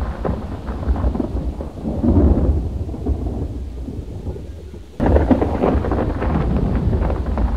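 Storm sound effect: rumbling thunder with a rain-like hiss. It fades over a couple of seconds, then cuts back in suddenly about five seconds in.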